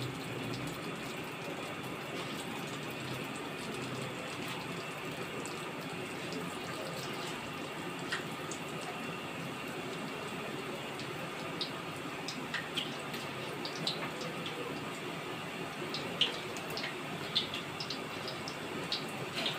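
Hot oil in a large aluminium pot sizzling as pakora batter is dropped into it by hand, with a steady hiss. Scattered sharp pops and crackles become more frequent in the second half.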